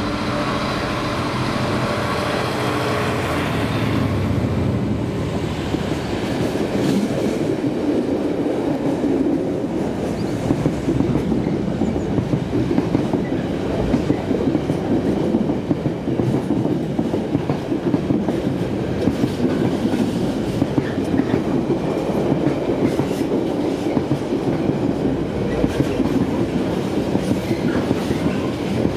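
Freight train passing: the locomotive's engine note for the first few seconds, then a long string of wagons rolling by with repeated clickety-clack of wheels over rail joints.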